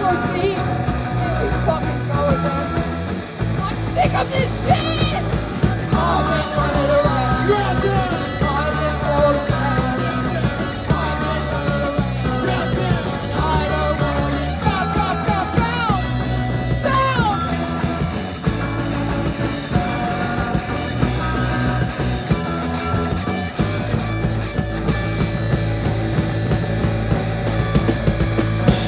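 Live punk rock band playing a song: distorted electric guitars, bass guitar and a drum kit under a lead vocal sung into a handheld microphone.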